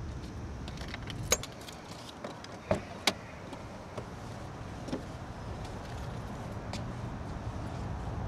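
Sharp clicks and small rattles of objects being handled inside a parked car's cabin, over a low steady rumble.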